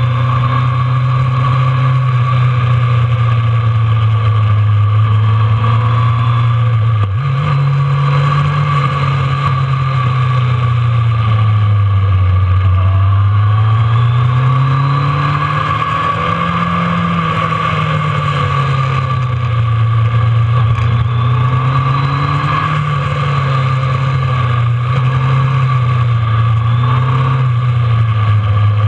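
Kawasaki ZRX1200 motorcycle's inline-four engine heard from on board while riding. The engine note rises and falls with the throttle, with a sudden jump in pitch about seven seconds in.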